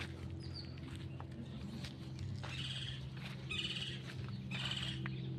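A bird calling in short buzzy bursts, four of them about a second apart from roughly halfway in, with a few thin high chirps earlier, over a steady low hum.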